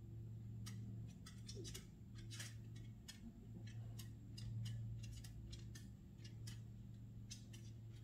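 Red-headed woodpecker pecking at suet in a wire-cage feeder: irregular sharp taps, a few a second, some in quick pairs.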